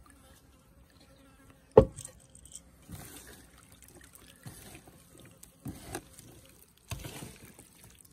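Raw chicken breast pieces being tipped onto a stainless steel tray and mixed by hand with sliced onion, bell pepper and spices: soft wet squelching and slapping of the meat. One sharp knock about two seconds in is the loudest sound.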